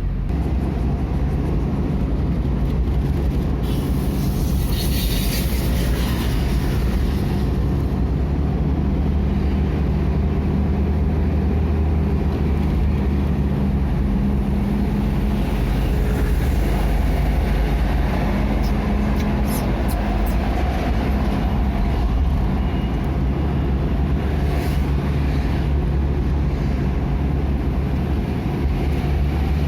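Motor vehicle on the move: steady engine hum and road rumble.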